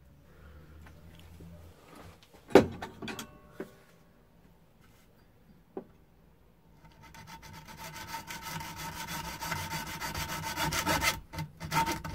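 A single loud knock about two and a half seconds in. From about seven seconds, a small hacksaw saws back and forth through a metal telescopic selfie-stick tube clamped in a bench vise, with a steady high tone under the strokes.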